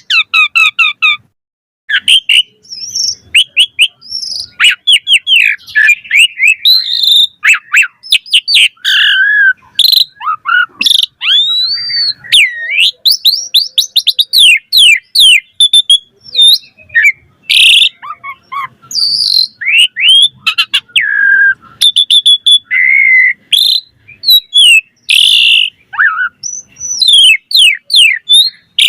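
Asian pied starling (jalak suren) singing a long, varied song of quick whistles, chirps and rising and falling glides, packed with different phrases, with a short pause near the start.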